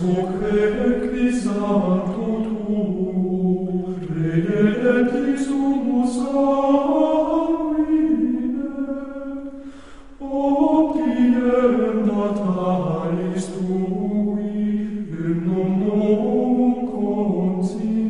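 Latin plainchant hymn sung in unison by a choir, one slow melody line in long phrases with a short break about four seconds in and a longer one near ten seconds.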